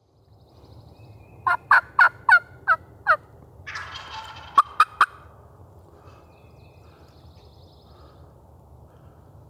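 Wild turkey calling at close range: a run of six loud yelps, each falling in pitch, then a rattling gobble, then three sharp short clicks. Fainter gobbling follows in the distance.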